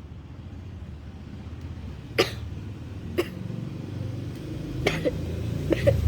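Four short, sharp cracks at uneven spacing over a low rumble that grows louder near the end.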